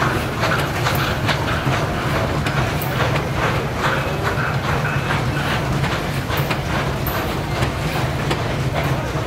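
Heavy loaded coal train hauled by an SY-class 2-8-2 steam locomotive, moving slowly on an incline: a steady low rumble with frequent irregular knocks and clatter from the wagons and running gear.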